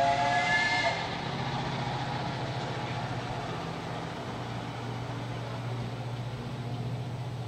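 Steam locomotive whistle sounding a chord of several tones, cutting off about a second in. It is followed by a steady low hum over faint background noise.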